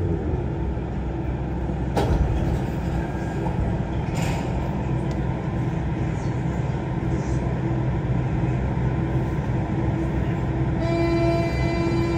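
Steady hum and rumble inside a Siemens VAL 208 rubber-tyred metro car, with a sharp click about two seconds in. Near the end a steady whine of several pitches starts and holds.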